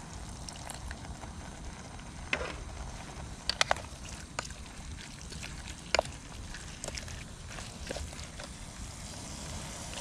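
Wooden spoon stirring in a metal camping pot, knocking against the pot's sides a handful of times, the loudest about six seconds in, over a steady low rumble.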